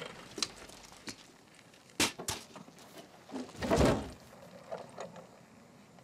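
A few scattered thuds and clicks of movement: small knocks near the start, a sharper thud about two seconds in, and a longer swell of rustling noise a little before the four-second mark.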